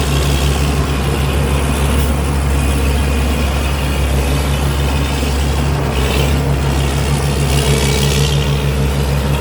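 Cummins diesel engine of a rice combine harvester running steadily and loudly under working load, with the rush of the machine's threshing and straw-handling gear over it and short surges of higher rushing noise about six and eight seconds in.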